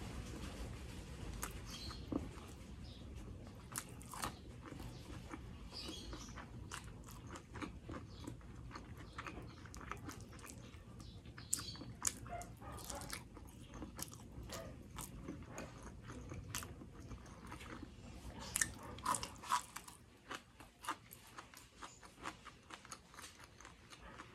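Close-miked eating sounds of a person chewing mouthfuls of sisig and fried rice eaten by hand: wet chewing with frequent sharp clicks, lip smacks and crunches. The clicks come thickest and loudest about three-quarters of the way through.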